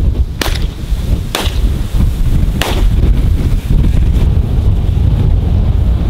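Three shotgun shots, the first two a second apart and the third just over a second later, over heavy low wind rumble on the microphone.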